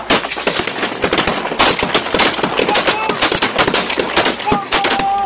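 Rapid volley of shotgun shots from several hunters firing together, several shots a second overlapping one another, with a brief whistle-like tone near the end.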